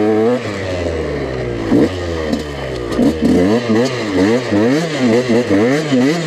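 KTM EXC 125 single-cylinder two-stroke dirt bike engine revving up and down hard while the bike spins donuts on gravel. The pitch climbs and drops repeatedly, with quick throttle blips about twice a second in the second half.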